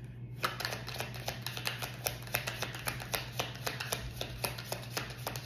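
A deck of oracle cards being shuffled hand to hand: a fast, irregular run of crisp card clicks and flaps that starts about half a second in.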